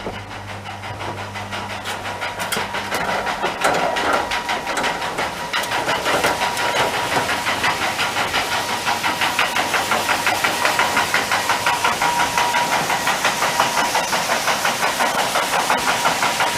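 Grain-handling machinery running, with a fast, even rattle of several knocks a second over a hiss of moving barley and a steady whine; it grows louder over the first few seconds.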